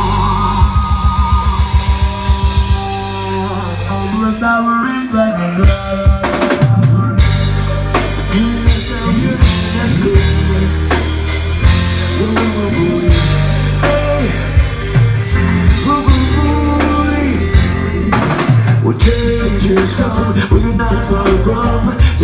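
Live reggae band playing an instrumental intro: rapid repeated low notes open it, then the drum kit comes in about six seconds in and the full band settles into a groove.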